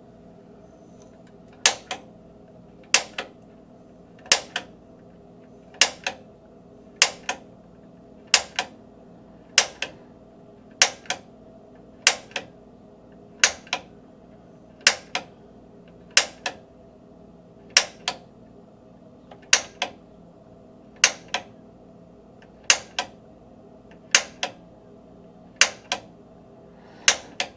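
Piezo igniter button on a Rheem gas water heater's gas control valve pressed over and over, a sharp snap about every 1.3 seconds, each followed by a softer click. These are repeated tries to light the pilot, which has not yet caught.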